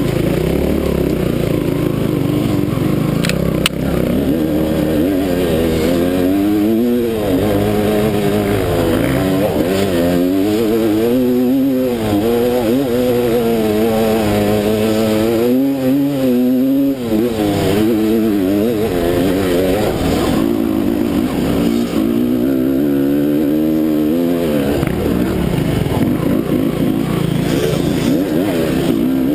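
Off-road motorcycle engine running hard on a trail ride, its pitch rising and falling over and over as the throttle opens and closes.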